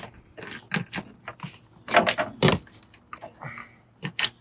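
A run of short plastic clicks and knocks as a solar-cable entry gland and its cables are worked into place by hand on a van roof. The loudest two come about two seconds in, a half-second apart.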